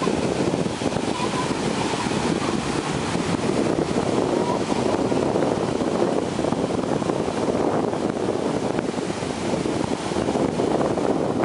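Ocean surf breaking and washing up the beach, with wind buffeting the microphone, a steady rushing noise throughout.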